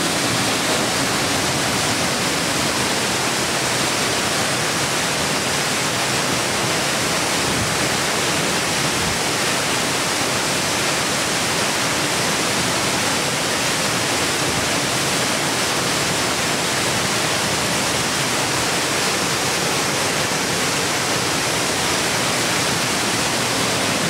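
Smoo Cave's underground waterfall pouring into its plunge pool inside the rock chamber: a steady, unbroken rush of heavy, fast-falling water.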